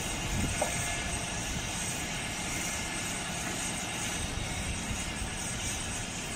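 Truck-mounted knuckle-boom crane's engine running steadily, a constant mechanical drone.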